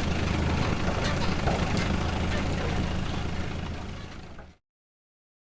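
Truck engine running steadily with some light clicks, fading and then cutting off suddenly about four and a half seconds in.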